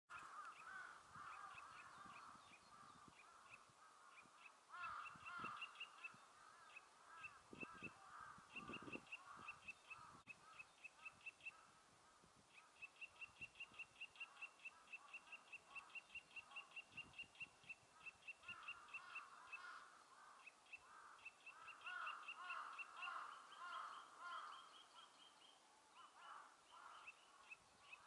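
Faint song of a Eurasian nuthatch: series of short, clear repeated whistled notes, with a long even run of about five notes a second in the middle, over other birds calling lower in pitch.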